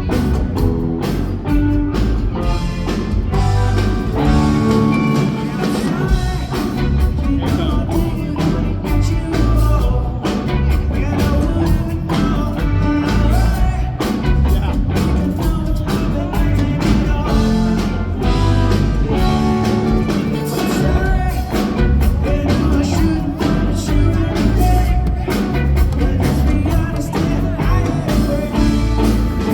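Rock band playing live: drums, bass and guitars at full volume, with sung vocals over them.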